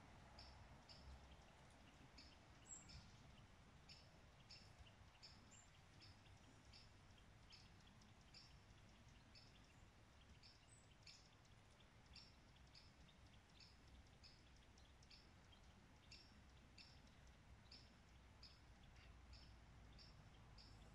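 Quiet outdoor background with a faint low rumble and a small creature's high, short chirp repeating steadily, about one or two a second.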